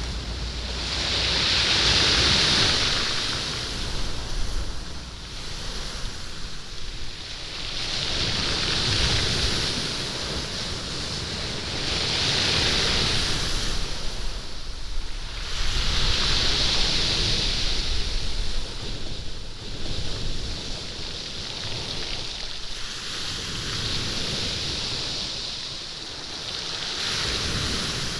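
Sea waves washing up a stone beach and drawing back, rolling and rattling the stones with a hissing rush that swells and fades every few seconds.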